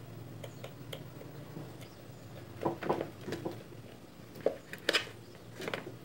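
Scattered light clicks and knocks of a white plastic blender base being handled while a motor wire is connected to its switch, with a few louder knocks from about the middle on.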